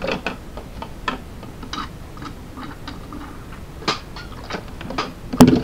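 Scattered small clicks and crackles of a crushed plastic drink bottle being handled and sipped from through a straw, with a louder click near the end.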